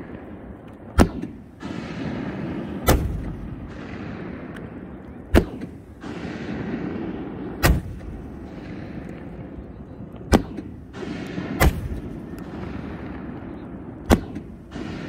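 Consumer fireworks exploding: seven sharp bangs at uneven intervals of about two seconds, each with a short echoing tail, over a low steady rumble.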